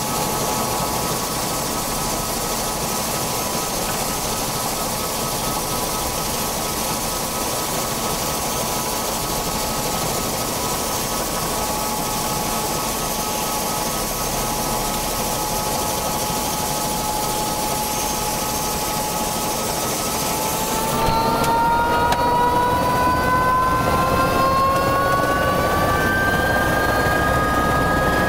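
Helicopter turbine and rotor running, heard from inside the cabin: a steady whine over rotor noise, then about three quarters of the way through it gets louder and the whine rises in pitch as the engine spools up for take-off.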